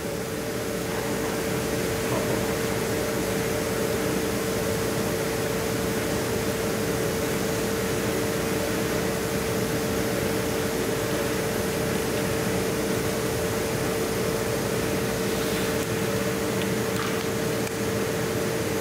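Steady mechanical whir with a constant mid-pitched hum from the running laser-cutting rig's cooling and air equipment while the laser cuts through cardboard.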